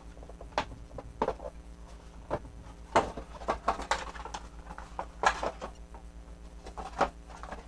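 Hard plastic Playmobil castle pieces clicking and knocking as they are picked up, moved and set down, in irregular taps and clatters.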